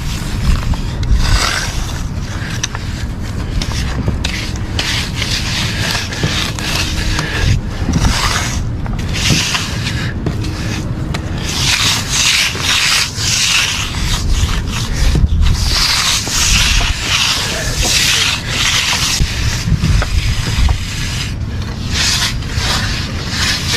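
Stiff concrete broom dragged in repeated strokes across a freshly poured concrete slab, giving it a broom finish, over a steady low rumble.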